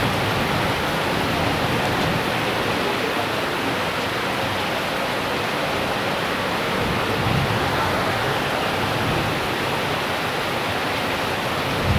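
Heavy tropical rain pouring down steadily, a dense, even hiss of the downpour.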